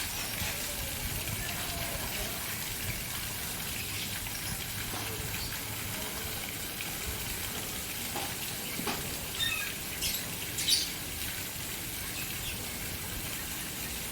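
Outdoor water fountain splashing steadily, with a few short, sharp chirps from caged birds between about eight and eleven seconds in.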